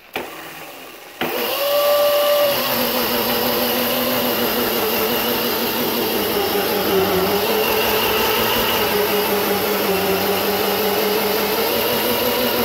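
Razor electric dirt bike's motor whining at full throttle as the rear tire spins against a tile floor in a burnout. It comes on suddenly about a second in and holds a steady whine over a rushing noise, its pitch sagging briefly a couple of times.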